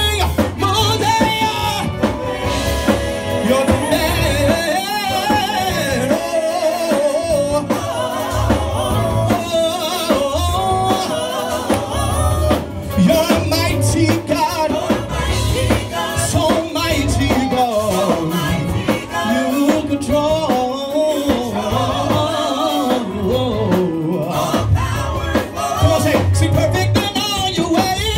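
Live gospel band playing with singing: drum kit and guitar under sung vocals, with a steady beat.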